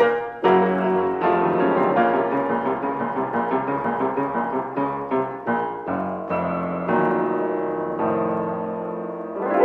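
Solo piano music, a brisk run of notes and chords, with a quick upward run at the very end.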